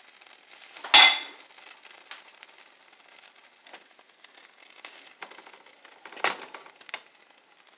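Kitchen dishware clatter as a ceramic plate is fetched and brought to the stove. There is a sharp, ringing clink about a second in and a smaller knock a little after six seconds, with light ticks between.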